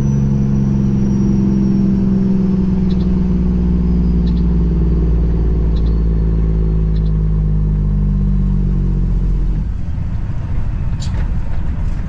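Semi truck's diesel engine heard from inside the cab, a steady low drone whose pitch sinks slowly as the truck slows on an exit ramp, with a faint high whine falling with it. About nine and a half seconds in the engine note drops away, leaving a lower, rougher rumble.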